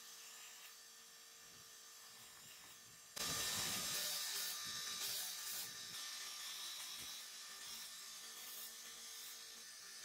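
Motor-driven sanding belt running with a steady hum. About three seconds in, a folding knife's handle and steel bolsters are pressed onto the abrasive, adding a loud hissing grind that eases off a few seconds later as the shaping goes on.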